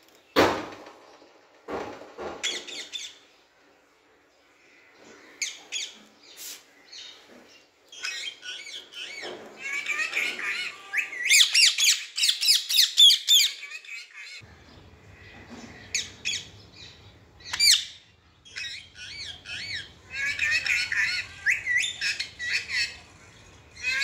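Young Indian ringneck parakeet calling in short high chirps and squawks, with two long rapid runs of calls, one in the middle and one near the end. A sharp click sounds just after the start.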